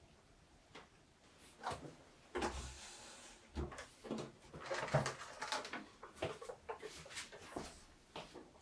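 Tableware being cleared from a wooden table: a ceramic plate, spoon and small dish clinking and knocking as they are gathered onto a tray and lifted away, with a short scraping rustle about two and a half seconds in.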